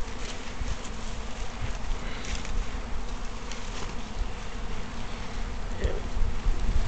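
Honey bee swarm buzzing, a steady dense hum of many bees.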